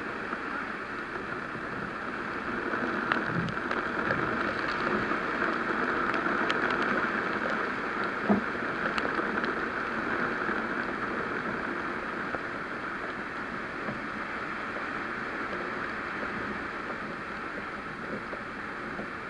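Steady rain falling and pattering, with a few sharp ticks and a single knock about eight seconds in.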